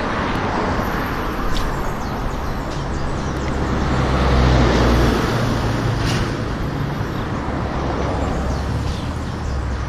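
Steady road traffic noise, with a motor vehicle passing close by about halfway through, its engine rumble swelling and then fading.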